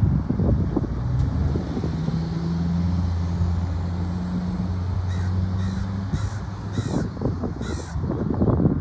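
A bird calls about five times in quick succession, over a low steady hum and rumble.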